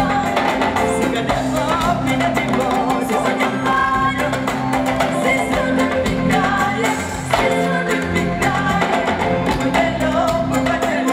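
Live band music: djembe and drum-kit percussion keeping a steady beat under a singing voice and instruments.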